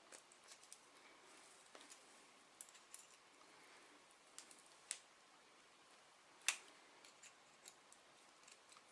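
Faint, scattered clicks and ticks of steel paperclip wire being twisted and pulled through by hand to form a loop, with one sharper click about six and a half seconds in.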